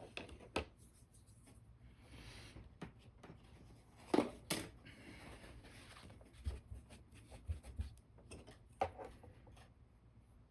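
A paintbrush brushing a thin acrylic wash onto a small wooden model, with scattered light taps and clicks from handling the brush and model; the sharpest pair of taps comes about four seconds in.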